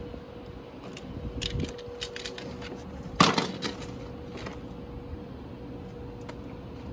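Rolson self-adjusting wire stripper clicking lightly as it is set on a thin wire, then snapping shut with one sharp clack about three seconds in as it strips the insulation. A faint steady hum underneath.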